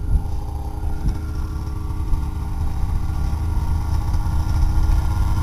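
Snowmobile engine idling, a steady low rumble that grows slightly louder toward the end, with a couple of brief knocks near the start.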